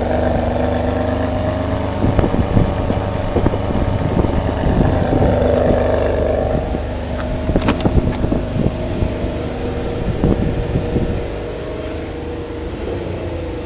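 Red Ferrari's engine idling steadily, with scattered knocks of the phone being handled; it gets a little quieter near the end.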